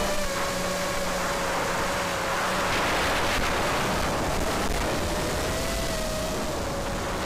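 Onboard sound of an FPV model aircraft in flight: the steady whine of its electric motor and propeller, wavering slightly in pitch, over a rush of wind noise.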